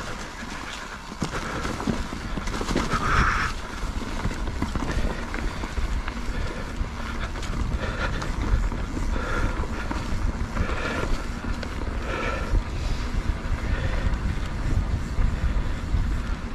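Wind buffeting the microphone over the rumble of a mountain bike riding down a dirt trail, with many small knocks and rattles from the bike over rough ground.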